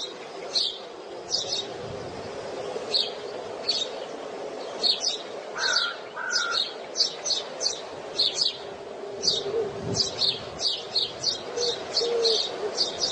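Birds chirping: many short, high chirps repeated irregularly, coming faster in the second half, over a steady low hum.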